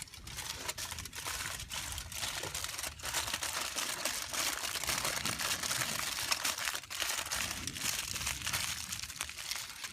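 Aluminium foil crinkling and crumpling as it is wrapped by hand around a bird for cooking, a steady crackle dotted with sharp clicks.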